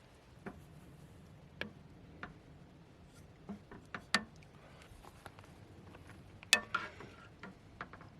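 Scattered small clicks and knocks of objects being handled, about a dozen irregular taps, with one louder clink about six and a half seconds in that rings briefly.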